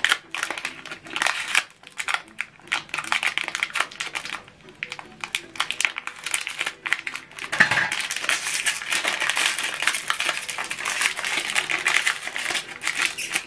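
Ink cartridge packaging being handled and opened by hand: scattered clicks and rustles, then from about eight seconds in a dense, continuous crinkling.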